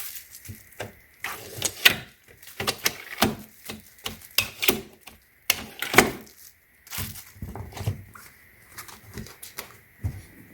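Hardshell PC+ABS suitcase being handled: irregular clicks, knocks and rattles of plastic parts, with the sharpest knocks about two and six seconds in.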